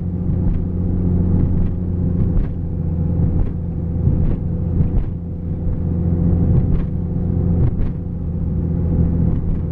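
Lifted Jeep driving on a snowy road, heard from inside the cab: a steady engine drone with a few faint ticks, its note dropping slightly near the end.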